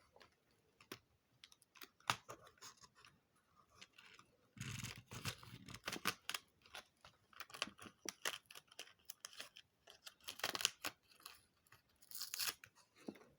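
Thin plastic foil wrapping being torn open and crinkled by hand, with scattered small clicks and rustles; the loudest tearing comes about five seconds in, with more bursts near the end.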